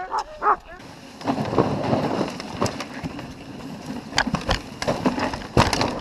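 A dog sled running over rutted snow: a steady scraping, crackling rush from the runners, with knocks and low thumps as the sled bumps along. A dog whines briefly at the very start.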